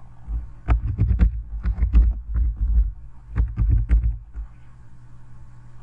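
Computer keyboard typing: a quick run of keystrokes, each with a low thud, starting about half a second in and stopping about four seconds in.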